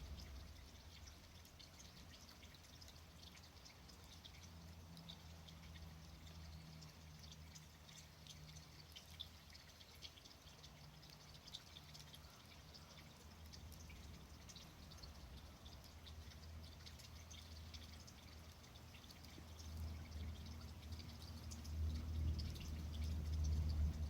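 Wood campfire crackling, with scattered small pops and snaps over a low rumble that grows louder in the last few seconds.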